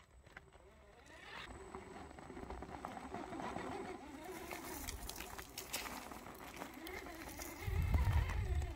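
Axial Wraith RC rock crawler's electric motor and gear train whining, the pitch rising and falling with the throttle as it crawls over rock, with scattered clicks and scrapes from the tyres on stone. A loud low rumble comes in near the end.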